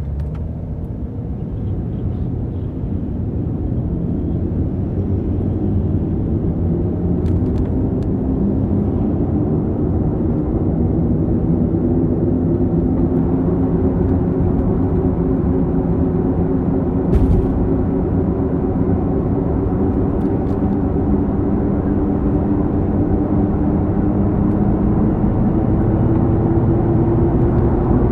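Subaru Alcyone SVX rear wheel hub bearing droning while driving, a humming tone that slowly rises in pitch and grows louder as speed builds: the abnormal noise of a worn hub bearing. A single brief knock about two-thirds of the way through.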